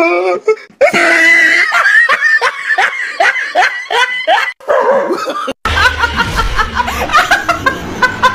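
Hearty laughter in quick repeated bursts. About five and a half seconds in it changes to a woman laughing over a low hum.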